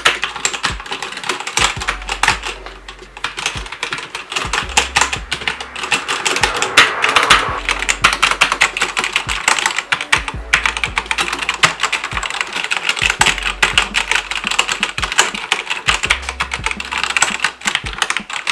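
Fast typing on a Cougar Puri TKL mechanical keyboard with Cherry MX Red switches: a dense, continuous run of key clicks and clacks, easing off briefly a few seconds in.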